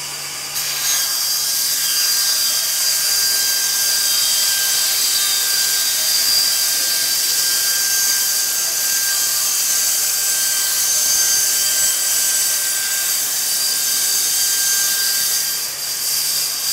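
Band saw running and cutting wood: a loud, steady high hiss with a faint whine, starting abruptly about half a second in.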